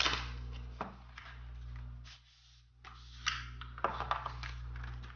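Cardboard and paper packaging of an Apple Milanese band box being handled and opened: a run of rustles with light taps and knocks, several in a row.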